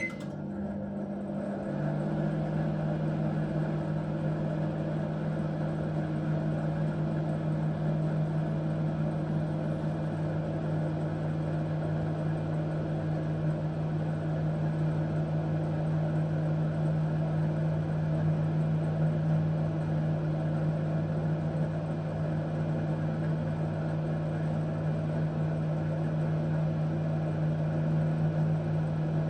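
Microwave oven running: a steady hum that settles slightly lower about two seconds in, then holds.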